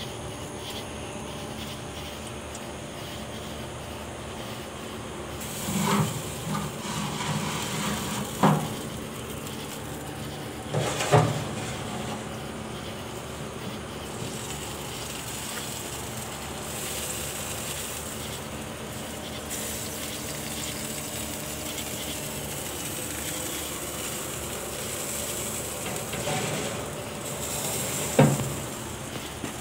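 Meat sizzling on the grates of a wood-and-charcoal smoker, a steady hiss. A few short knocks come about six, eight and eleven seconds in, and once more near the end.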